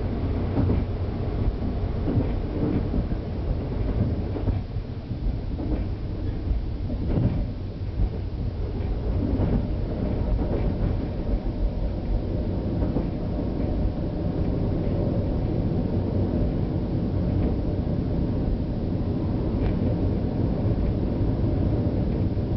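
Steady low rumble of a KTR001 series diesel railcar running, heard from inside the cab end. Its wheels click and knock over points and rail joints through the first half as it runs into a station.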